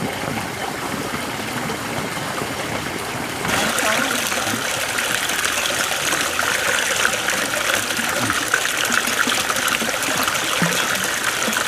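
Steady rush of running water, getting louder about three and a half seconds in.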